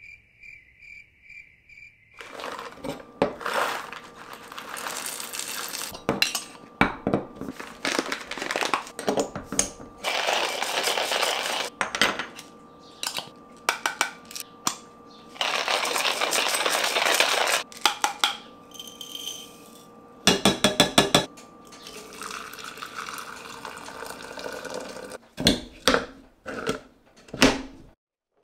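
Clinking and clattering like dishes and cutlery being handled, a long run of sharp clicks and knocks broken by a few longer rushing noises lasting one to two seconds each. Crickets chirp for the first two seconds.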